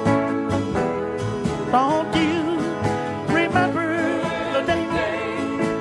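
Country band playing a slow ballad, with a wavering vibrato melody line over a steady backing beat.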